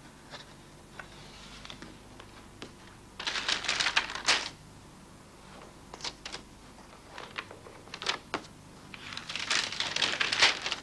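Photo-album pages turned by hand: two rustling page flips, about three seconds in and again near the end, with a few light clicks and taps between them.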